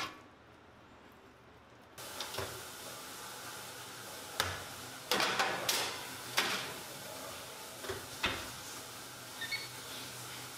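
Clatter and clunks of a metal baking tray being slid into a Bosch built-in oven and the oven door being shut, a run of sharp knocks with a cluster about halfway through. Near the end come two short electronic beeps from the oven's controls as the dial is turned.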